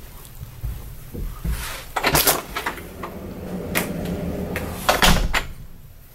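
Interior house door being handled and opened: a series of knob, latch and door clicks and knocks, loudest about two seconds in and again about five seconds in.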